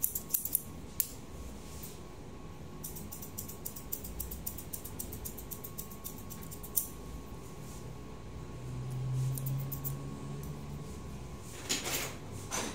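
Hair-cutting scissors snipping in quick runs of short, crisp snips as hair is cut over a comb, with pauses between the runs. A low hum rises for about two seconds past the middle, and a brief hiss comes near the end.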